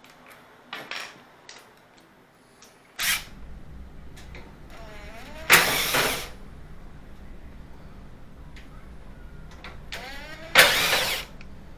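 Cordless power driver backing out Phillips screws from an LG dryer's cabinet: two short runs of the motor, about halfway through and near the end, each a brief whir that rises and falls in pitch, after a shorter burst about three seconds in.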